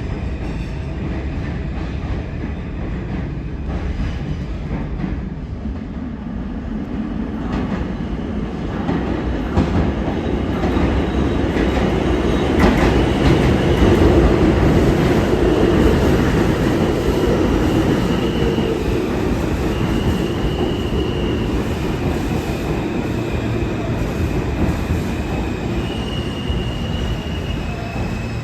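An R160 subway train running on the rails, a steady rumble and clatter of wheels that grows louder toward the middle and then eases off. From about halfway through, short high steady tones come and go above the rumble.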